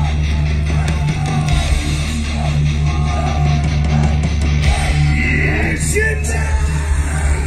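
Live heavy metal band playing loud: distorted electric guitars and a heavy bass, with a singer's voice over them and the crowd's shouts mixed in.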